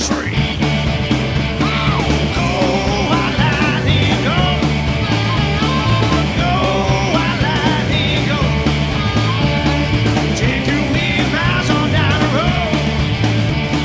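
Rock band playing a loud, driving rock-and-roll song, with pitch-bending lead lines over a heavy, pounding low end.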